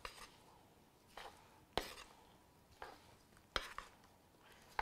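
Serving spoon knocking against a wooden salad bowl while chunks of cut fruit are tossed: a few faint, sharp knocks at irregular intervals, roughly one a second.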